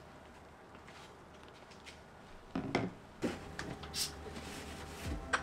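A few light knocks and clicks from handling a plastic trigger spray bottle of cleaner, with one short, sharp spray hiss about four seconds in.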